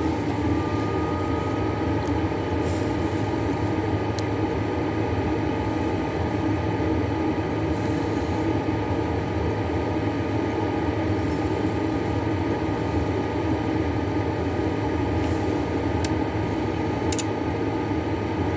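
Bench oscilloscope's cooling fan running after power-on: a steady whir with a low hum and a thin, faint whine, with a few faint clicks.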